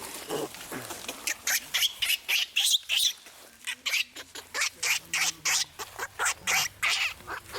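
Monkeys' short, shrill squeals repeated rapidly, about three a second, starting about a second in.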